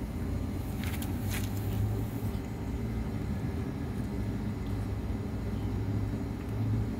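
A steady low motor hum, with a few short clicks about a second in.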